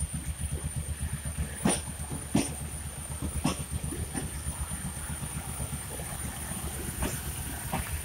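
Passenger coaches of an Indian express train rolling slowly past over a level crossing: a steady low rumble and clatter from the wheels, with a few sharp knocks as wheels pass over the rail joints.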